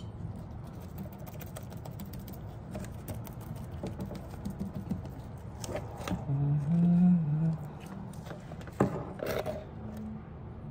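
Scattered light knocks and scrapes as a plastic resin cup is handled and fiberglass mat is worked down with resin, over a low steady hum. A brief low murmur of a voice comes in about six to seven seconds in.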